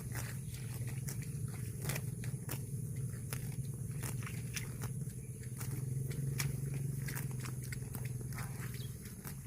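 A cow eating grass, with irregular crisp clicks and crunches of tearing and chewing, over a steady low hum.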